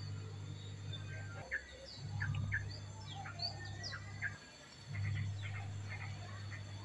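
Small birds chirping in many quick, short calls, over a steady low hum that cuts out briefly about one and a half seconds in and again about four and a half seconds in.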